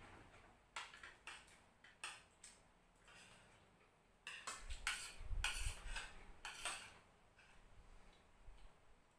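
Spoons and forks clinking and scraping against ceramic bowls and plates during a meal: a few scattered clinks at first, then a louder run of scraping and clatter in the middle, with some dull thuds on the table.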